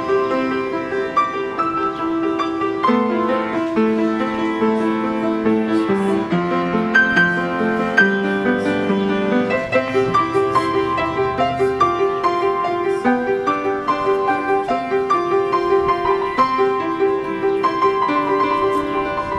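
Instrumental background music led by a piano, a running melody of short notes over chords.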